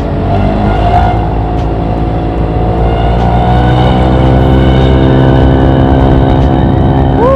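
Honda BeAT scooter with an MP7 'hiung' regulation exhaust running under way. The engine and exhaust note climbs gently in pitch as it picks up speed, then holds steady.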